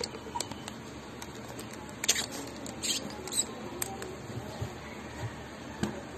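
Scattered light clicks, taps and short scrapes as a cast-aluminium hand lemon press is handled and its lever is raised.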